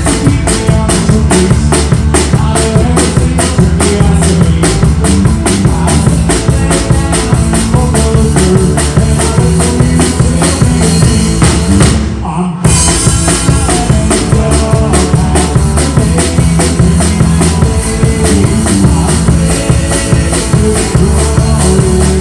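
Live rock band playing a song: a drum kit keeps a fast, steady beat under electric bass and guitar. About twelve seconds in the band stops for a split second, then comes straight back in.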